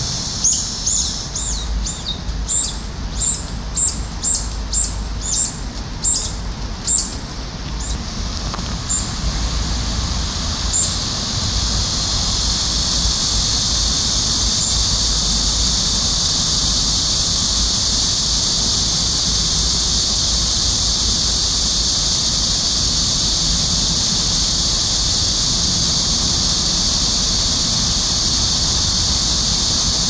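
Brown-eared bulbuls giving a quick series of about a dozen shrill, sharp calls over roughly the first ten seconds, over a steady high drone of cicadas that carries on alone afterwards.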